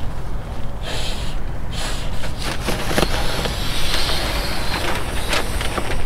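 Wind rumbling on the microphone while a plastic house-wrap sheet crinkles and rustles as it is handled, the crackling starting about a second in.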